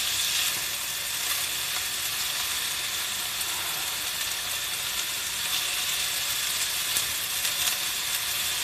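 Pork and bean sprouts sizzling in a frying pan while being stirred with chopsticks: a steady frying hiss with a few faint clicks.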